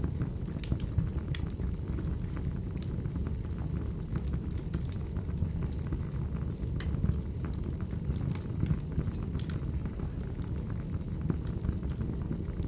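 Wood fire crackling: a steady low rumble of burning logs with sharp pops and snaps at irregular moments.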